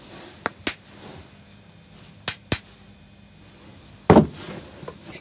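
Small wooden hand plane clicking and knocking against a block of wood: two pairs of sharp clicks, then a louder, short knock a little after four seconds in.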